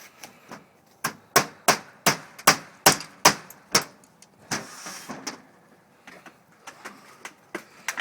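A quick run of about ten sharp knocks, roughly three a second, as a window is forced out of its frame, followed by a short scraping rush and a few lighter knocks.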